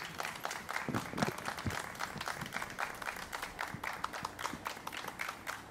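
Light applause by hand: separate, irregular hand claps, several a second, from a small group.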